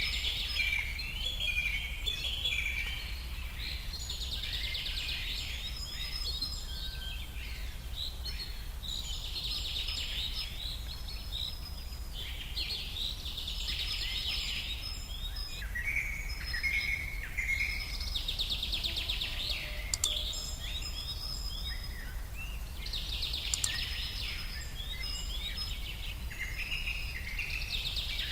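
Forest ambience of wild birds singing and chirping, with bursts of song returning every four or five seconds over a steady low background rumble.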